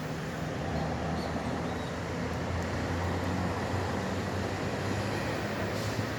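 Steady road-traffic noise from a city avenue: a low rumble of passing vehicles that swells a little now and then.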